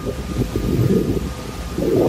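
Wind buffeting the microphone: an uneven low rumble that flutters and rises and falls.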